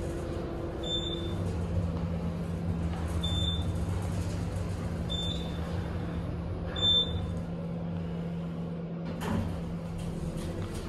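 Otis Gen2 machine-room-less traction elevator car in motion: a steady low hum with a droning tone, and four short high beeps about two seconds apart as it passes floors. A brief swish of noise near the end.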